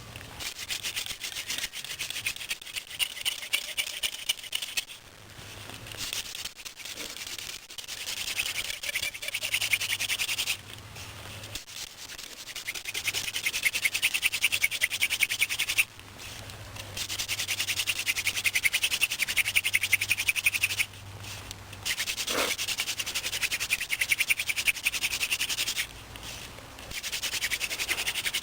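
Cattail hand-drill spindle spinning back and forth in the notch of a willow hearth board: a fast, rhythmic rasping rub of wood on wood. It comes in bouts of about four to five seconds with short breaks between them, working up heat toward an ember.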